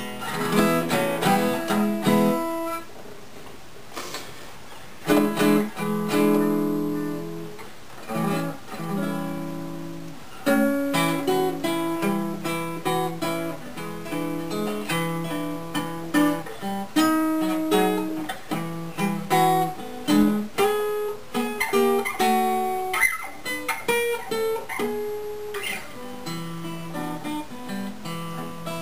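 Gibson L-48 archtop acoustic guitar played solo, a mix of picked single notes and strummed chords, with a short pause about three seconds in. The guitar has just been repaired and is being played to show its sound.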